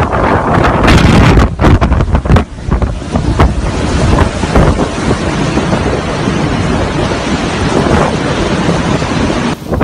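Strong storm wind blowing over the microphone, a loud rushing noise that comes in uneven gusts for the first few seconds and then holds steadier, falling away suddenly just before the end.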